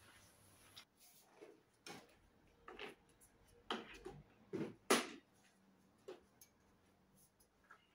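Plastic mop bucket and mop knocking and clattering as they are moved across a tiled floor: a few separate clacks, the loudest about five seconds in as the bucket is set down.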